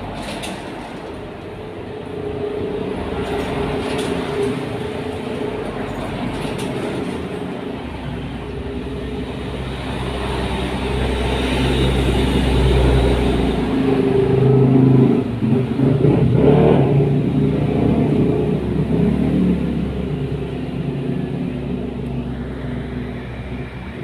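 A motor vehicle's engine running steadily, growing louder to a peak between about twelve and seventeen seconds in, then easing off as it passes.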